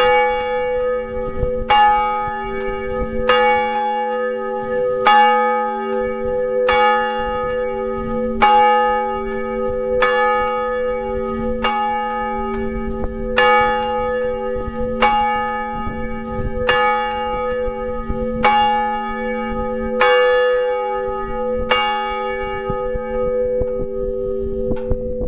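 A single large church bell ringing up close inside its tower, struck about every 1.7 seconds, each stroke leaving a long humming ring. The strokes grow weaker near the end.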